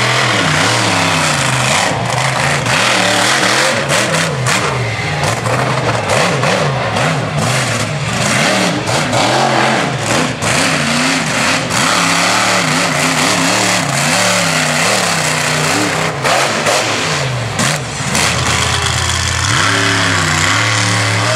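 Monster truck engines revving hard and loud, pitch repeatedly climbing and falling as the trucks throttle up and back off. Near the end, another sharp rise in pitch as a truck revs up.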